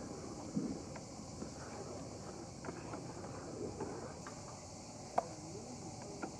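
Steady high chirring of insects in the background, with soft, irregular handling sounds of hands pressing stuffing into a roasted duck and a sharp click about five seconds in.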